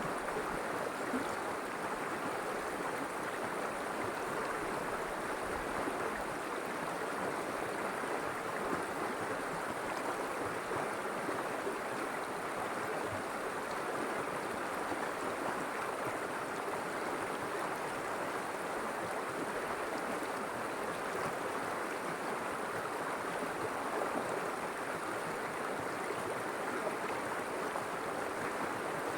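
River water flowing steadily over rocks, a continuous even rushing and babbling.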